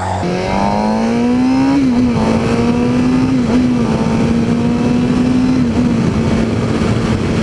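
2015 Suzuki GSX-R600's inline-four engine pulling hard under acceleration: the revs climb, then drop with a gear change about two seconds in and again around six seconds.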